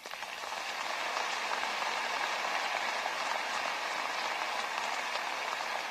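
Audience applauding steadily, swelling quickly at the start and then holding even.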